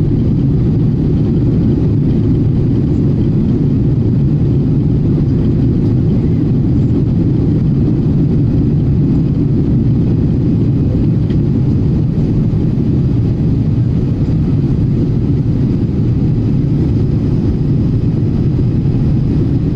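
Steady, low cabin noise of an airliner climbing after takeoff: engine and airflow noise heard from inside the passenger cabin.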